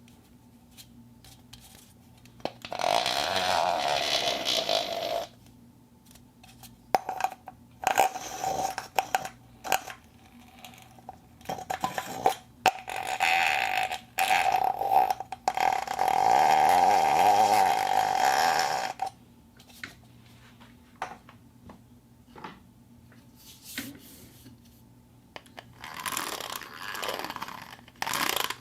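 Plastic cup handled for foley: scattered sharp clicks and taps, and two longer rubbing scrapes with a steady ringing pitch, the first about two and a half seconds long, the second about three and a half seconds long in the second half.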